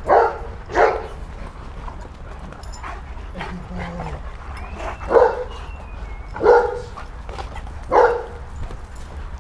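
A dog barking: five single deep barks, two in quick succession at the start, then three more spaced a little over a second apart in the second half.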